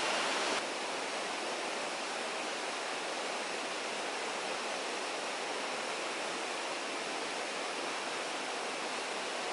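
Steady rushing outdoor noise with no distinct events, a little quieter from about half a second in.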